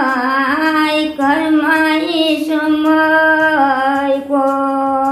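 An elderly woman singing a Nepali folk song unaccompanied, holding long drawn-out notes with wavering turns between them and pausing briefly for breath twice.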